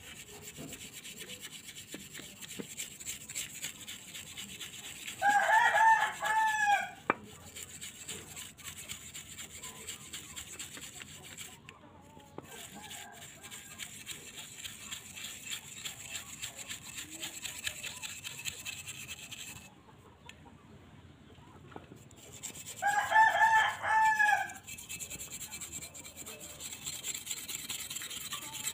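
A hand wire brush scrubbing rust off an old cast metal motorcycle pedal in quick, steady rasping strokes, stopping for about two seconds past the middle. A rooster crows loudly twice over it, about five seconds in and again about twenty-three seconds in.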